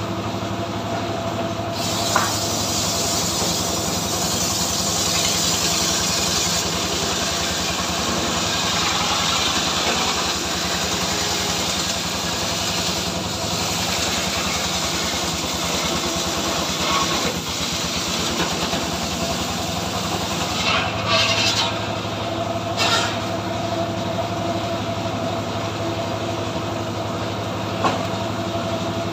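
Homemade cart-mounted circular sawmill (a srekel) with its engine running steadily while the blade rips a log lengthwise into planks. The cutting noise swells about two seconds in and rises and falls as the log is pushed through, with a few short knocks.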